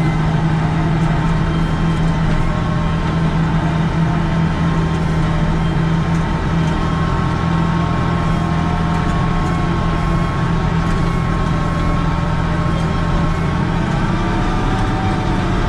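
Volvo 4400 wheel loader's diesel engine running steadily under load while it pushes snow, heard from inside the cab.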